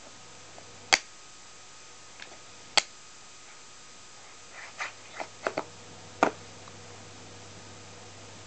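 Wooden puzzle pieces knocking against a wooden inset puzzle board: a single sharp clack about a second in and another near three seconds, then a quicker run of taps and clacks around five to six seconds in.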